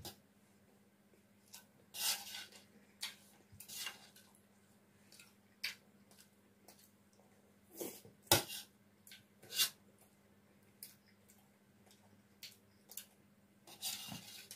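Metal spoon clinking and scraping on a stainless steel plate of fried rice, with close-miked chewing between strokes. The clinks come irregularly, the sharpest about eight seconds in.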